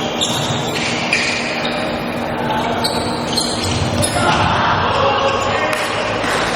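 Indoor volleyball rally in an echoing gym: the ball being struck and bouncing, and short high squeaks of shoes on the court, over a steady murmur of crowd voices that swells about four seconds in.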